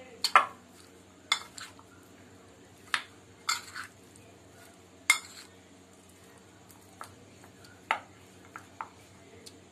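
Spoon clinking and scraping against a glass bowl while stirring chicken pieces into cornflour: irregular sharp clinks about once a second, the loudest near the start and about five seconds in.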